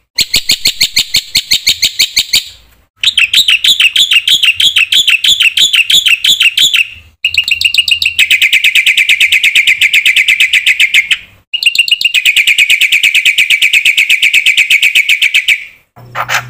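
Black-winged starling (jalak putih) singing in long runs of fast, rapidly repeated chattering notes, four runs broken by short pauses. It is a loud, full song of the kind used as a lure to set other starlings singing.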